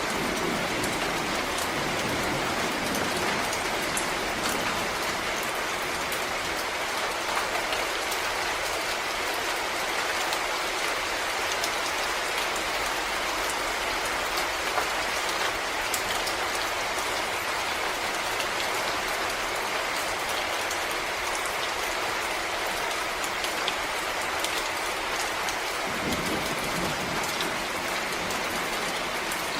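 Steady rain falling in a forest, a dense hiss with many small drops pattering on leaves and the ground.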